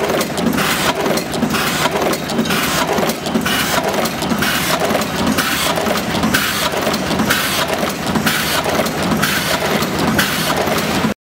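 A fully automatic double-end wire crimping machine running at production speed, with a continuous rapid clatter of sharp mechanical clacks from its crimping presses and wire-handling actuators. The sound cuts off suddenly near the end.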